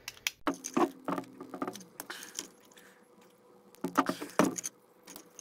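Irregular clicks, taps and small rattles from hand disassembly: small screws being backed out of a hobby servo and set down on a work mat, and hard plastic robot-leg parts knocking as they are handled.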